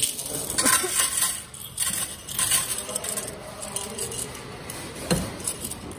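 Coins poured and shaken out of a glass bottle, clattering and clinking onto the perforated metal tray of a coin-counting kiosk, thickest in the first few seconds, with a louder knock about five seconds in.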